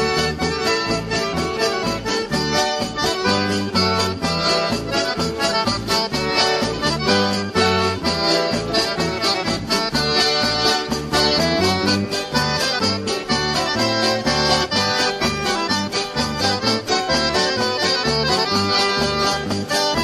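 Accordion (sanfona) leading dance music, with a bass line and a steady beat.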